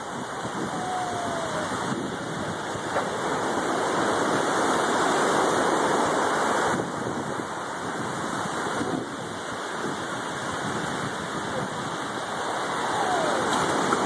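Ocean surf washing up the beach: a steady rushing noise that swells about halfway through and again near the end.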